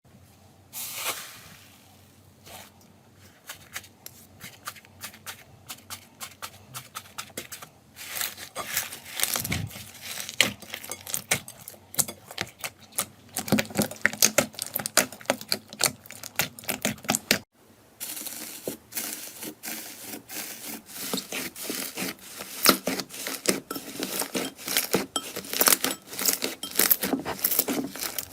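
Slime being squished, stretched and poked by hand: dense runs of wet crackles, clicks and pops. There are brief near-silent breaks about 8 and 17 seconds in, after which the crackling grows denser.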